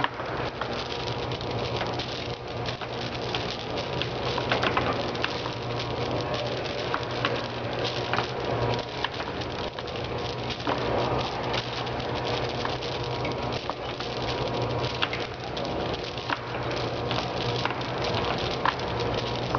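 Small pieces of gum pouring out of a stainless steel feeder's discharge tube and pattering into a plastic-lined box as a dense stream of small ticks, over a steady hum from the feeder.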